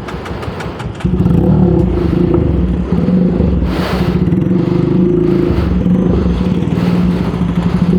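Motorcycle with a new loud aftermarket exhaust running, its exhaust note jumping louder about a second in and then holding steady.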